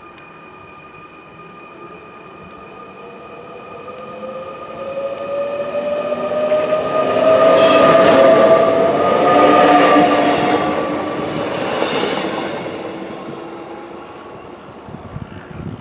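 SNCF double-deck electric train passing through the station at speed: its motor whine and running noise build as it approaches, with a tone rising in pitch. The noise is loudest about eight to ten seconds in, then fades as the train goes away.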